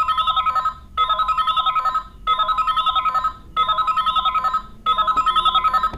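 DX K-Touch 21 toy playing its electronic standby loop: a rapid, trilling beep, repeated in five bursts of about a second each with short gaps between.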